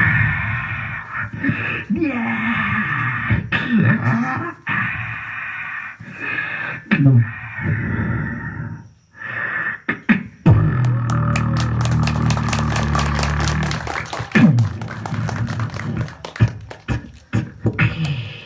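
Beatboxer making vocal sound effects with the mouth. The first half is a run of shifting pitched noises and glides. From a little past halfway it turns into a low steady drone with fast clicking on top, which stops just before the end.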